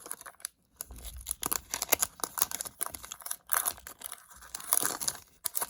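A hockey card pack's wrapper being torn open and crinkled by hand, in several irregular crackling bursts.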